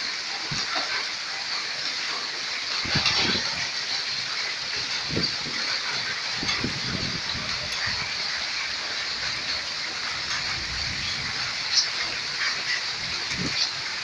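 Heavy rain pouring down steadily, with low gusts of wind buffeting the microphone now and then and a few sharp taps of drops near the end.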